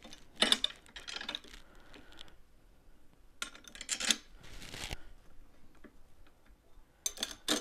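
Light clicks and clinks of small steel parts: hitch brackets and bolts being handled and fitted against a steel tow tube, coming in a few short clusters with a brief scrape near the middle.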